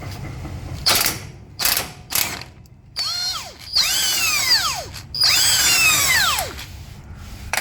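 A power tool undoing the steering rack mounting bolts on a Toyota Land Cruiser 200 series. A few short clattering bursts come first. Then the tool runs three times, each run winding up and then falling away in pitch as the motor slows, the last the longest.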